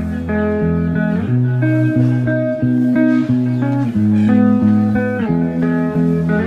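Background music: a steady guitar-led instrumental with plucked notes changing about every half second.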